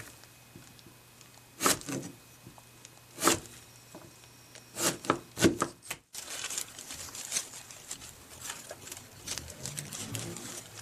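Kitchen work on a Chinese quince: a few sharp knocks spaced a second or more apart in the first half, then after an edit, lighter rustling and small clicks.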